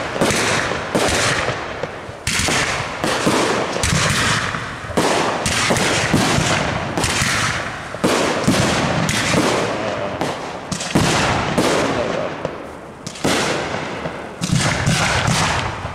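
Aerial fireworks display: shells launching and bursting in a dense run of bangs, one close on another, each followed by a short tail of noise.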